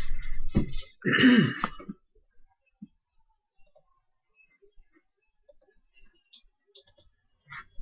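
A man clears his throat about a second in, right after a short noisy burst. The rest is quiet apart from faint scattered clicks of a computer mouse.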